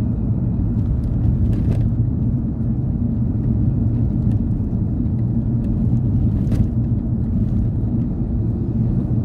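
Steady low rumble of a car's engine and tyres at road speed, heard from inside the cabin, with a couple of faint clicks.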